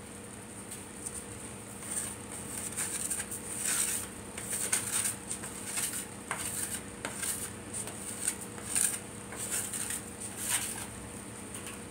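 A plastic dough scraper scraping and tapping against a plate in irregular short strokes.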